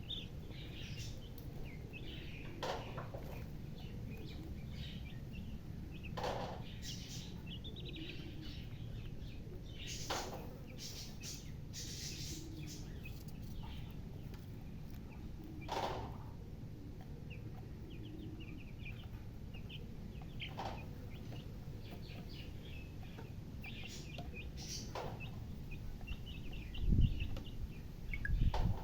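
Chicks and a hen: many short, high chirps scattered throughout, with a few brief scuffing sounds over a steady low hum, and a couple of loud low thumps near the end.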